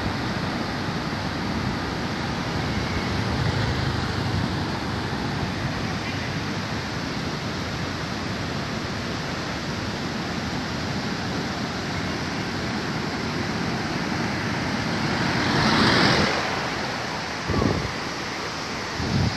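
Steady rushing roar of the flooded Sapta Koshi river pouring through the Koshi Barrage, with a louder swell about three-quarters of the way through and a couple of short louder bursts near the end.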